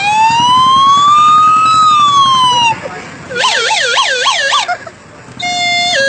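A plastic toy whistle blown to imitate a vehicle siren: a long wail rising and falling in pitch, then a fast warbling yelp of about four swoops a second, then a stepped two-tone hi-lo call near the end.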